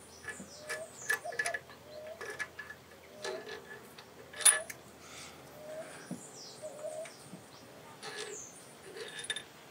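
Scattered clicks from a socket ratchet loosening the cylinder head bolts of a Mitsubishi 6G74 V6 a quarter turn at a time, with one louder sharp crack about four and a half seconds in.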